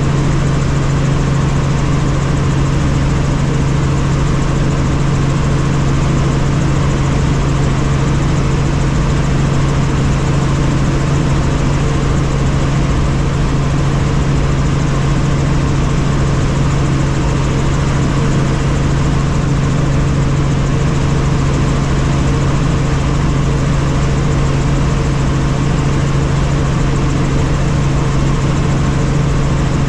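Helicopter in flight, heard from inside the cabin: steady engine and rotor noise with a constant low hum that holds level throughout.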